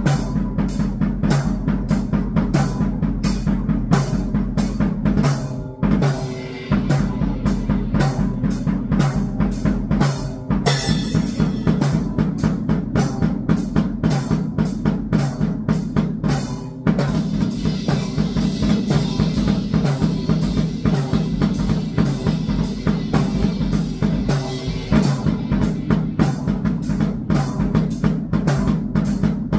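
Drum kit played in a fast, even beat of kick and snare over a sustained low drone, with short breaks about six and ten seconds in. A hissing high wash joins in through the middle stretch.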